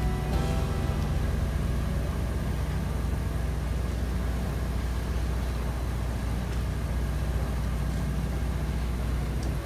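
Steady low engine drone of a passing vessel, with an even rushing hiss over it.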